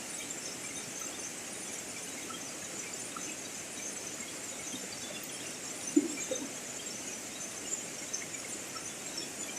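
Underwater river ambience: a steady hiss with faint crackling ticks, one sharp knock about six seconds in and a few fainter taps near the end.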